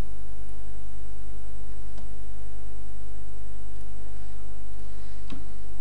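Steady electrical mains hum on the recording, with two faint mouse clicks: one about two seconds in and one near the end.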